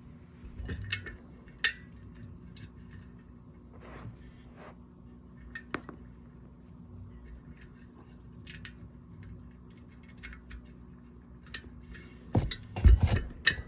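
Small metal hardware clinking and tapping as bolts, nuts and washers are handled and started by hand on a wheel hub. There are scattered light clicks, then a louder burst of clanks near the end.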